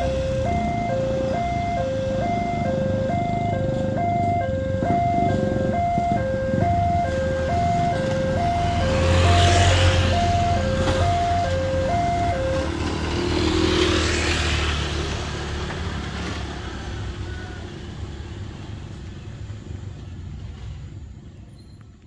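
Electronic two-tone level-crossing alarm sounding its fast high-low warning, about one high-low cycle a second, stopping about twelve seconds in as the barrier arms finish rising. Motorcycles pass close by twice, about nine and fourteen seconds in.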